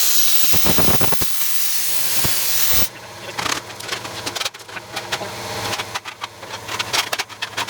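Plasma cutter cutting a steel disc on a circle jig: a loud, steady hiss of cutting air and arc that cuts off sharply about three seconds in. It is followed by quieter clicks and knocks.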